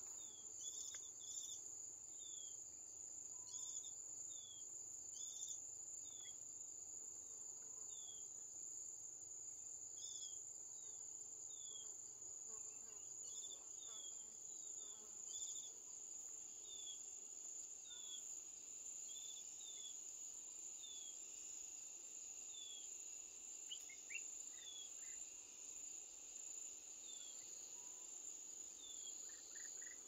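A steady, high-pitched drone of forest insects, with a short falling chirp repeating about once a second over it.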